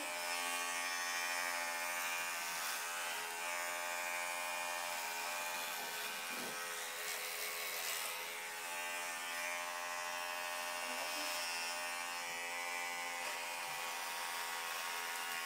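Electric hair clippers buzzing steadily as they shave through long hair down to the scalp.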